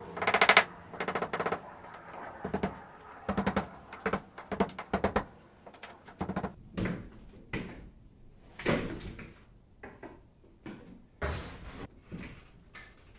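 Irregular clicks, rattles and knocks from hand tools and metal trim being worked loose from a station wagon's tailgate, some coming in quick rattling runs.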